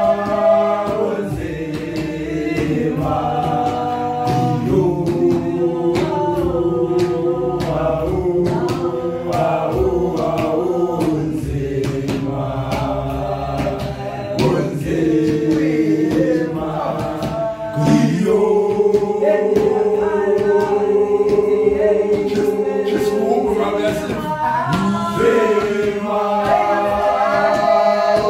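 Men's voices singing a gwijo, a Xhosa a cappella group chant, several parts in harmony with long held chords that shift every few seconds. Sharp knocks run through it, likely from feet stamping.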